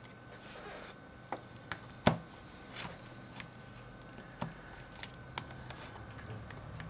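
Scattered small clicks and taps, irregular and uneven in strength, the sharpest about two seconds in: a thin pry tool working under the edge of a phone's cracked screen glass against the frame.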